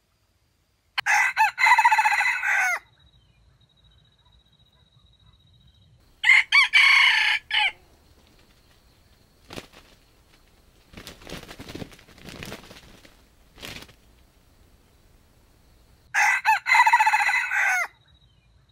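Red junglefowl rooster crowing three times. Each crow is short and clipped, and the second is shorter than the others. A few quieter clicks and rustles come between the second and third crows.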